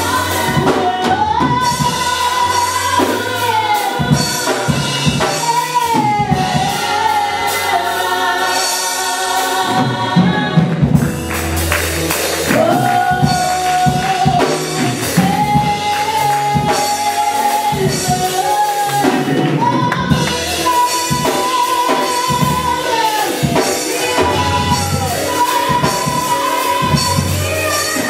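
Live gospel worship music: voices singing long held notes over a band, with drums keeping a steady beat.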